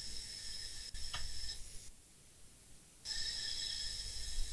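Hot air rework station blowing on a motherboard MOSFET: a hiss with a steady high whine that cuts out about two seconds in and comes back about a second later. A short falling chirp about a second in and a sharp click near the end.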